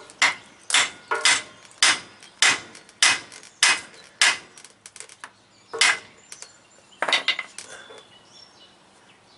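Hammer blows on the steel yoke of a truck driveshaft, knocking a U-joint bearing cap loose: a run of sharp metallic strikes about two a second, then two more spaced-out blows before they stop.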